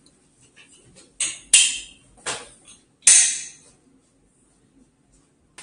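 A motorcycle airbag vest being put on and fastened: four short, sharp rasps of its straps and fabric, roughly a second apart, with faint rustling between.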